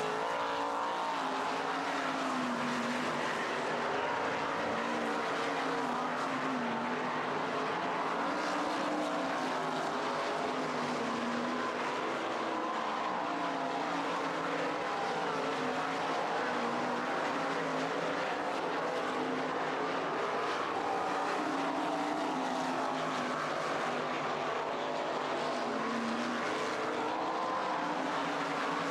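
Several 410 winged sprint cars' 410-cubic-inch V8 engines running on a dirt oval, their engine notes rising and falling as they circle the track.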